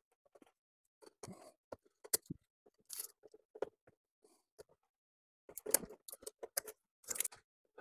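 Hands handling a plastic transponder holder with wire through it against a plastic bumper grille: scattered small clicks, taps and rustles, with a few short scraping bursts in the second half.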